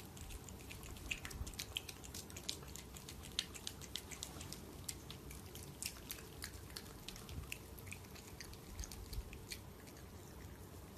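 Cat crunching dry kibble: rapid, irregular crunches that thin out near the end as it stops eating.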